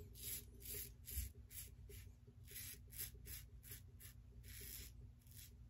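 Aylsworth Drakkant stainless open-comb safety razor scraping through lather and stubble on the neck in short, quick strokes, about three a second; faint and scratchy.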